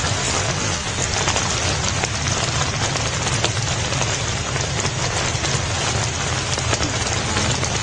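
Steady rushing noise at an even level, with no distinct calls or knocks.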